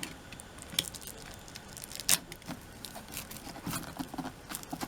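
Album packaging being handled: scattered light taps, clicks and rustles of cardboard and paper.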